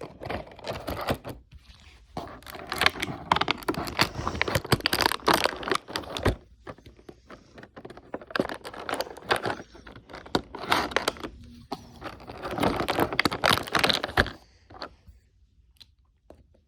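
Packaging being unwrapped by hand: crinkling and tearing of wrapping material in several bouts, with short pauses between.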